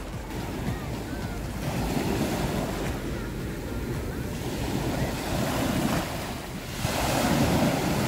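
Small waves breaking and washing up a sandy beach, the surf swelling louder about seven seconds in, with wind noise on the microphone.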